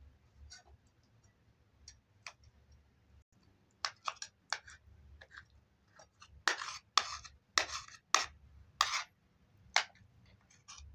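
Metal spoon scraping and clinking against metal serving dishes as food is dished out: a run of sharp strokes, sparse at first and then about two a second in the second half. Faint clicks come before them.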